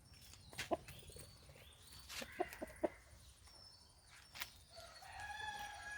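Aseel chicken giving a few short, soft clucks among faint clicks; near the end a longer, steadier call begins.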